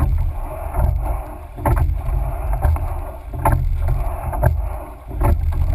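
Rowing shell under way with four sweep rowers. Oars clunk in their oarlocks and the blades splash, a sharp knock about once a second in the rhythm of the stroke, over rushing water and a steady wind rumble on the microphone.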